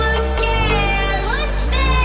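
Electronic background music with a deep sustained bass line that shifts note twice and a sliding lead melody above it.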